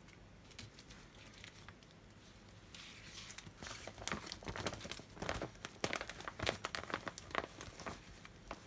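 Thin clear plastic film crinkling and crackling as it is lifted and folded by hand, starting about three seconds in.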